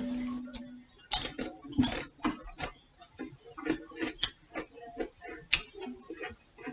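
Crunchy snacks being chewed: irregular, sharp crunches and crackles, a few each second.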